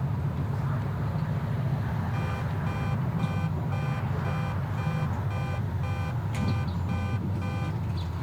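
A vehicle's backup alarm beeping steadily about twice a second, starting about two seconds in and stopping near the end, over the steady low rumble of an idling engine.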